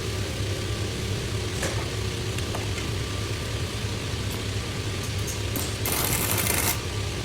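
Ambience of an overlock sewing machine assembly workshop: a steady machinery hum with scattered light clicks, and a short burst of hiss about six seconds in.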